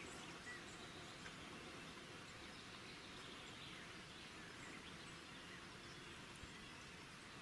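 Near silence: faint steady outdoor background hiss, with a few faint, brief bird chirps.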